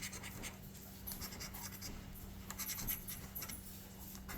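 A coin or scraper scratching the latex coating off an instant lottery scratch-off ticket, in short repeated scraping strokes with brief pauses between them.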